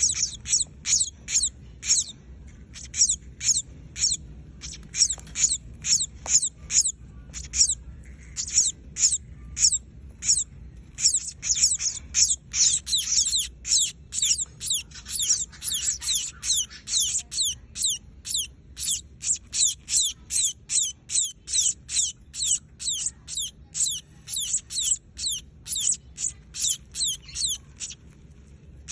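A young emprit kaji (munia) chick giving high, thin, short calls over and over, about two to three a second, with a brief thinning about ten seconds in.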